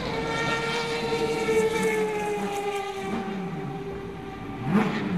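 Turismo Carretera race car's six-cylinder engine running at high revs as the car passes on track, a steady pitched tone that slowly falls in pitch. A short louder swell comes near the end.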